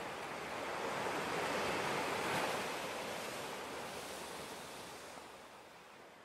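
A rushing, surf-like noise with no pitch, swelling about two seconds in and then fading out gradually.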